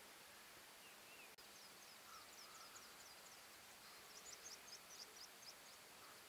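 Faint, rapid series of short, high, downward-slurred notes from a small bird, in two runs of a second or two each, over near-silent open-air ambience.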